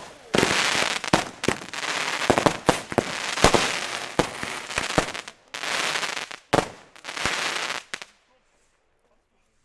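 Firecrackers going off in quick, irregular succession, many sharp bangs with hissing, crackling noise between them. The sound cuts off abruptly about eight seconds in.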